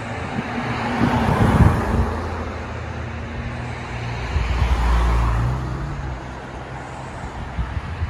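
Road traffic: cars passing on the street, with one swelling up and fading away about a second and a half in and another about five seconds in.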